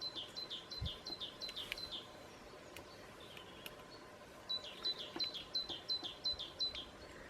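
A songbird singing two phrases of quickly repeated high notes, each a short steady tone that drops away, about three a second. The first phrase is at the start and the second begins about four and a half seconds in.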